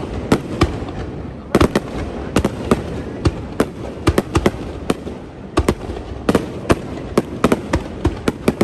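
Aerial fireworks shells bursting in quick, irregular volleys. The sharp bangs come in clusters and overlap, over a continuous rumble and crackle from the display.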